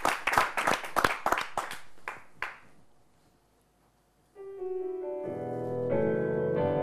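Small studio audience clapping, the applause thinning out and stopping about two and a half seconds in. After a brief lull a gentle piano intro starts, building toward the end.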